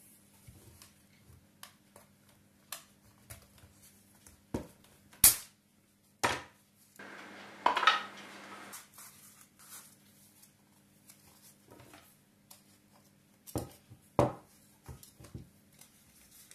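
Clicks, knocks and scraping of a kitchen knife and a brass water meter handled on a wooden table as the meter's wire seal is cut, with a sharp click about five seconds in and a scraping stretch of about a second and a half around the middle.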